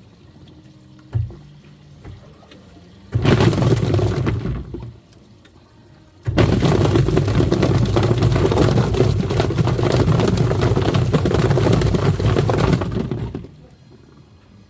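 Twin-tub washing machine's wash tub churning water with plastic toy animals inside, in two runs: a short one about three seconds in, then a longer one that starts suddenly about six seconds in and dies away near the end.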